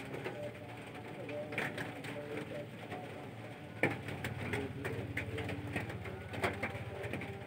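A dove cooing softly in the background, a few short coos repeating, with a few light clicks mixed in.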